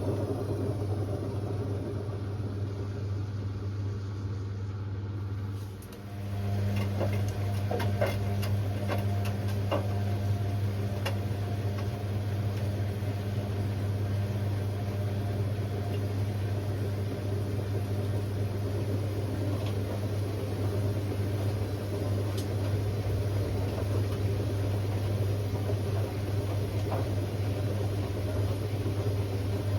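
Hotpoint Aquarius WMA50 washing machine on a spin, its motor and drum giving a steady hum. About six seconds in the sound dips briefly, then picks up again with a few sharp rattling clicks over the next several seconds before settling back into the steady hum.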